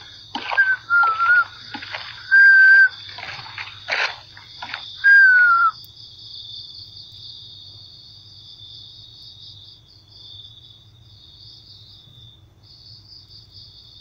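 A few short, loud whistle-like notes, each held briefly at one pitch, the last one sliding down, mixed with clicks. They stop about six seconds in, leaving crickets chirring steadily.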